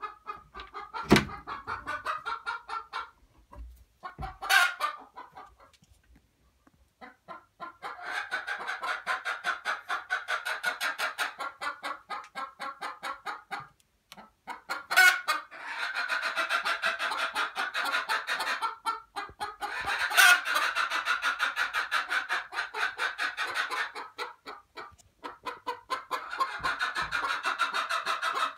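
A metal barrel bolt clicks open about a second in, with a second sharp knock a few seconds later. Then hens sitting in a straw nest box cluck in long runs of rapid, evenly repeated clucks.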